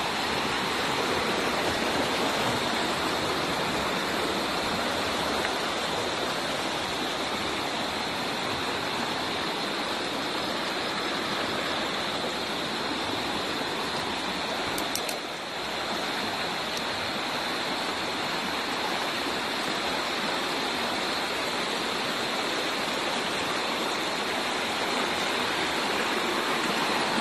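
A shallow, rocky river rushing over stones: a steady rush of running water.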